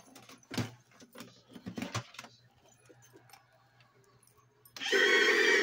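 Clicks and rattles of a camera being handled and repositioned. Near the end, a loud sustained sound with many overtones starts abruptly.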